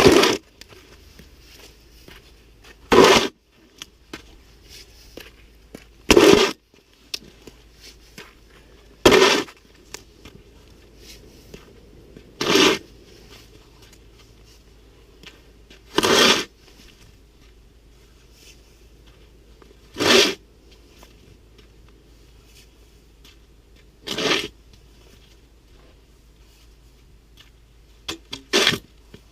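Snow shovel scraping through deep snow: a short, loud scrape about every three to four seconds, nine strokes in all, the last ones quicker and lighter.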